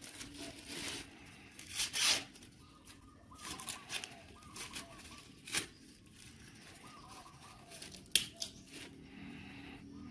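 Dry corn husks being torn and stripped from an ear of corn by hand: irregular tearing and rustling, with louder rips about two seconds in and a sharp one about eight seconds in.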